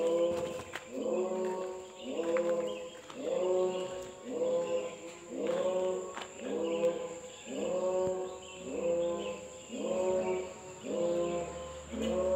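Voices chanting or singing one short phrase over and over, about once every 1.2 seconds.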